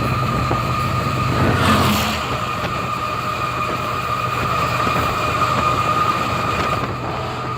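Diesel train running steadily on the rails: a constant low engine hum with a steady high whine above it, and a brief rushing swell about two seconds in.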